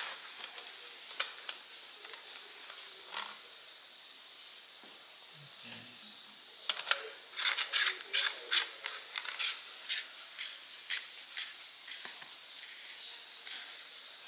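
Scattered clicks and light knocks as the metal extension rod sections and plastic parts of an electric spin scrubber are handled and pushed together during assembly. The knocks are busiest and loudest through the middle, over a steady low hiss.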